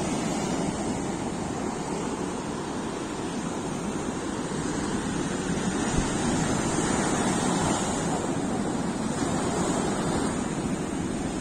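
Ocean surf breaking and washing up a sandy beach: a steady rushing wash that swells a little midway.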